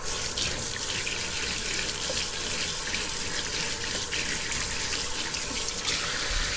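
Kitchen faucet running steadily into the sink while hands are washed under the stream.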